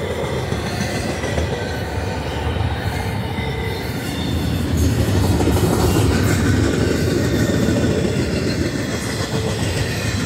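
Double-stack intermodal freight train passing close by: steel wheels of the loaded well cars rolling and rumbling on the rails in a steady run, growing louder about halfway through.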